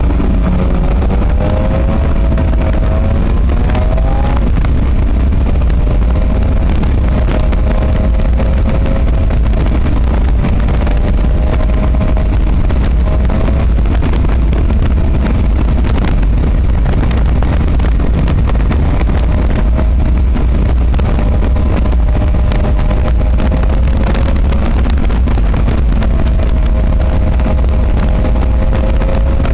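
Subaru EJ22 flat-four engine in a converted VW Type 2 bus, heard from inside the cab while cruising at highway speed: a steady engine drone over heavy road and wind rumble. The engine note wavers and rises a little a couple of seconds in, then holds steady.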